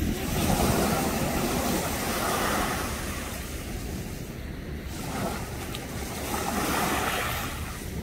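Small ocean waves washing and splashing against shoreline rocks, swelling twice, over a steady low wind rumble on the microphone.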